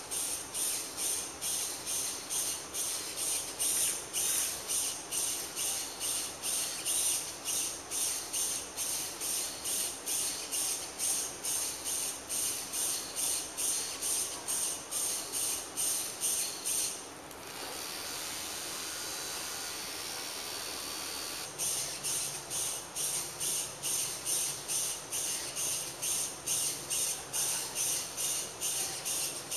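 Small tracked robot's geared drive motors whirring in short, even pulses, about three a second, as it turns on the tile floor. For about four seconds past the middle the pulsing gives way to a steady hiss, then resumes.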